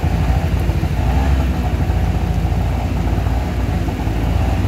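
Auto-rickshaw engine running with a steady low rumble, heard from inside the cabin.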